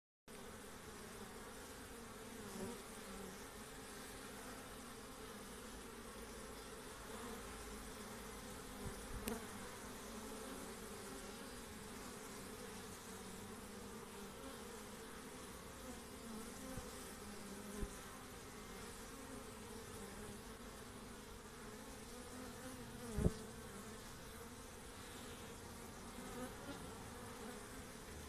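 Honeybees buzzing at a busy hive entrance: a steady hum of many bees, with a few louder buzzes as single bees fly close past, the loudest about three-quarters of the way through, falling in pitch as it passes.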